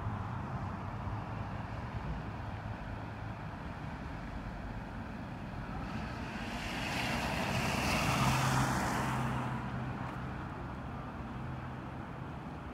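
A car passing on a wet street, its tyre hiss swelling to a peak about eight seconds in and then fading, over a steady low traffic rumble.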